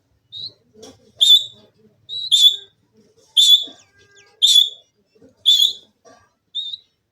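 Indian ringneck parrot giving a series of loud, shrill calls, about one a second, with a few shorter, softer notes between them.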